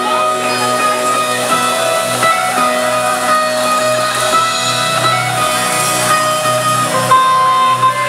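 Live funk band playing: electric guitar and sustained keyboard notes over bass and drums.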